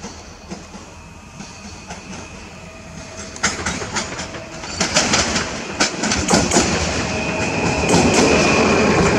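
Stadler FLIRT electric multiple unit (PKP Intercity ED160) approaching and running past close by, growing steadily louder, its wheels clicking sharply over rail joints and points from a few seconds in. A thin high whine runs over it, and the rumble settles into a loud, steady one as the cars go by near the end.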